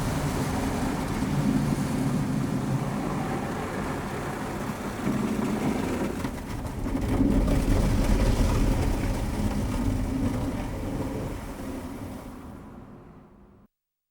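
Car wash heard from inside the car: a steady rumbling wash of noise on the bodywork. It swells about halfway through with a few sharp hits, then fades out over the last few seconds.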